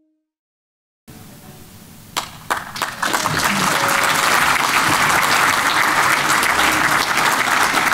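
Audience applauding: a few scattered claps about two seconds in, building into steady applause.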